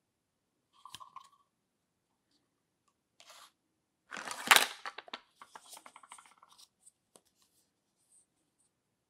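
Hard plastic toy cookware pieces clattering and clicking as they are handled and set down among each other. The loudest clatter comes about four and a half seconds in, followed by a run of quick light clicks.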